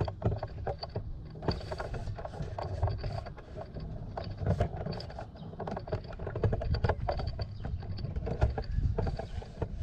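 Camera being handled and repositioned: irregular clicks, knocks and rubbing on the camera body over a continuous low rumble.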